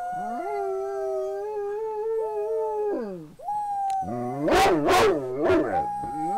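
Pet dog howling: long, drawn-out howls, the first dropping steeply in pitch as it ends about three seconds in, then a louder, rougher, wavering stretch in the middle, and another howl that slowly falls near the end.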